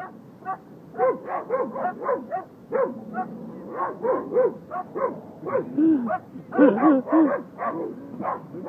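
A dog barking repeatedly, about three short barks a second, some higher and some lower in pitch.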